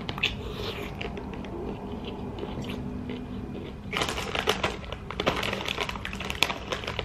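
Crunchy bite into a pickle spear and chewing, then from about four seconds in a chip bag crinkling as it is picked up and handled.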